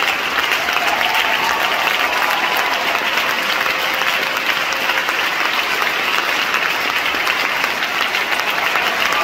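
Large concert-hall audience applauding steadily: dense, even clapping with no break.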